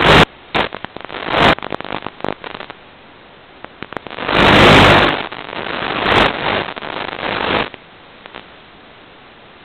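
Radio static from an analog FPV video link: a steady hiss broken by short crackles in the first couple of seconds. A longer, louder rush of noise comes about four seconds in and lasts about three seconds, which is the sign of the received signal breaking up.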